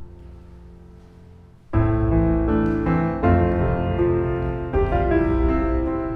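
Background music: a held chord dies away, then piano comes in strongly a little under two seconds in and plays a slow series of chords.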